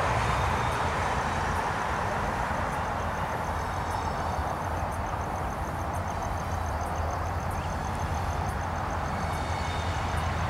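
Diesel locomotives at the head of a CSX intermodal freight train running with a steady low rumble as they approach slowly. A faint, rapid, regular high ticking runs underneath.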